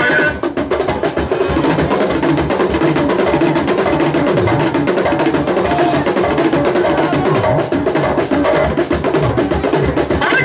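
Live Aloukou band music driven by drums and fast clicking percussion strokes, with pitched instruments underneath.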